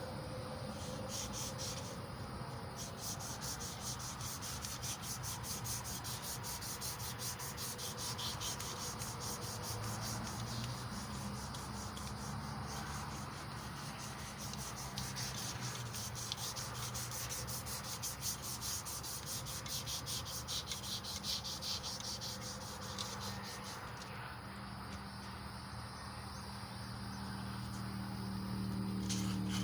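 Emery cloth rubbing back and forth on a small-block Chevy 350 crankshaft journal: a fast, steady rasping made of many rapid strokes, which stops a few seconds before the end. A low hum builds near the end.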